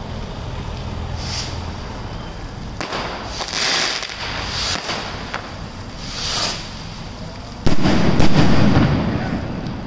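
Fireworks going off near a large bonfire: several short hissing whooshes and a few sharp cracks, then a loud bang nearly eight seconds in followed by a low rumble.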